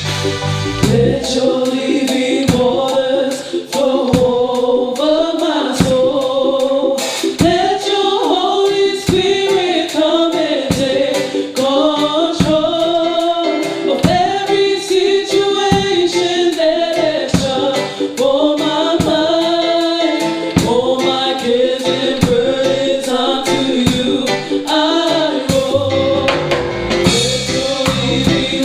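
Worship band playing a Christian worship song, with several voices singing over a drum kit that keeps a steady beat.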